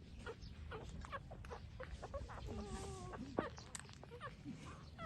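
Three-week-old puppies whimpering with many short, high squeaks, and one longer wavering whine about two and a half seconds in.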